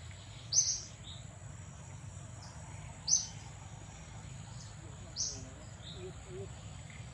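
A short, high chirp repeating about every two and a half seconds, four times, over a steady high-pitched insect drone.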